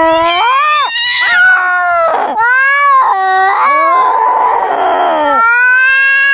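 Domestic cats caterwauling in a fight: long, wavering yowls that slide up and down in pitch, with a harsh hiss about four seconds in, then one long held yowl.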